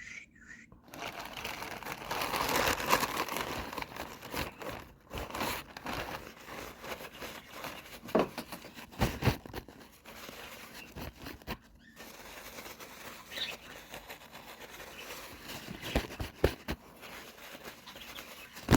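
Fingernails tapping and scratching on makeup packaging and containers, with a dense crinkly rustle early on and scattered sharp taps after it, the loudest a few near the middle and near the end.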